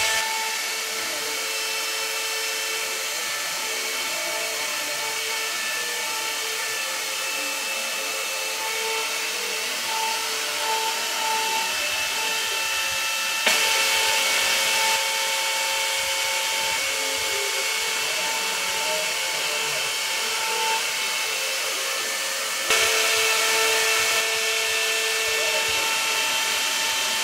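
CNC router spindle running steadily with an end mill cutting into a layered wooden pattern: a steady whine over cutting noise. Twice it gets louder and harsher for about a second and a half, about halfway through and again a few seconds before the end, as the cutter bites harder.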